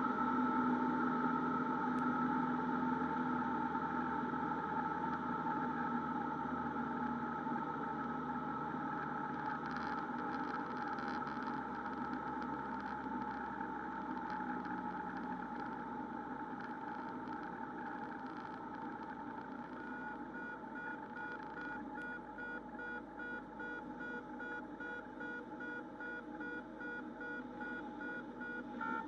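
Cessna 172RG's engine and propeller droning steadily in the cabin, getting slowly quieter as the power comes off for a stall. About twenty seconds in, a warning tone starts beeping in quick, even pulses.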